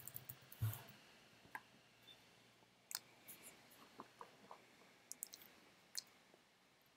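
Faint, scattered clicks of a computer keyboard and mouse, a few at a time and irregularly spaced, over near silence.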